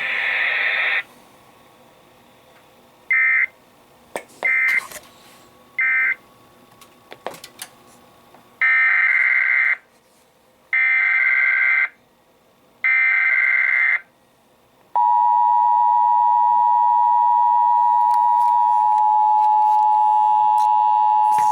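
Emergency Alert System data tones on an FM radio broadcast: three short warbling end-of-message bursts, then three longer, one-second header bursts announcing a new alert. About 15 seconds in, the steady two-tone EAS attention signal starts and holds.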